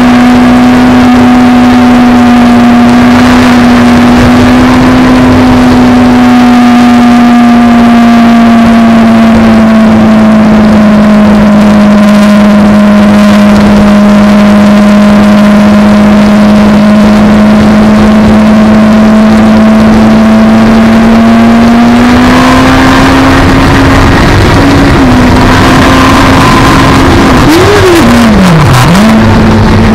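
Sport motorcycle engine running hard at high road speed, holding one steady note for about twenty seconds, then rising as the bike speeds up, with wind rush growing over it. Near the end the pitch swoops sharply up and back down once.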